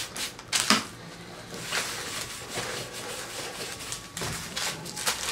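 Cloth scrubbing and wiping over the grimy body of a vintage Hoover Junior 119 vacuum cleaner: a rough, scratchy rubbing, with a sharp knock or scrape about half a second in and a few more near the end.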